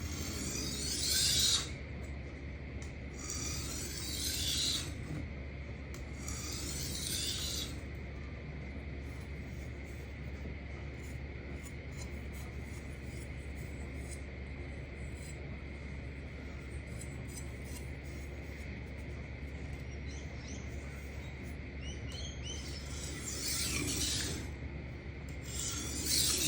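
Steel knife edge drawn across an abrasive sharpening plate in light, slow strokes, each a short rasp: three strokes a few seconds apart, then none for about fifteen seconds, then two more near the end. These are light-pressure deburring passes to knock off the burr.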